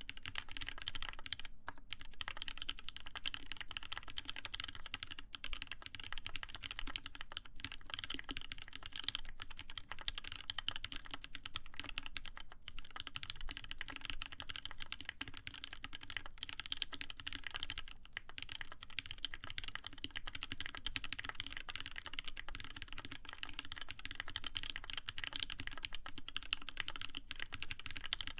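Continuous fast typing on a mechanical keyboard with lubed Cherry MX Black linear switches on a copper plate, a dense stream of key clacks with lubed stabilized keys among them.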